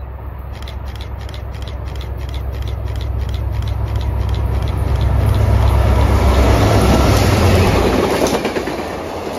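Two Amtrak P42 diesel locomotives approaching at speed: a deep engine rumble that builds to its loudest and drops off as the locomotives pass, near the end. Behind them comes the clatter of the passing cars. A fast, even bell rings about three strikes a second through the approach.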